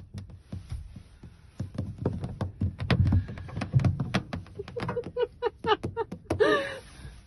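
Rapid taps and knocks on a car windshield as a cat paws at the glass against a hand pressed on the inside, loudest and busiest in the middle. Near the end comes a quick run of short pitched voice sounds and one longer, wavering one.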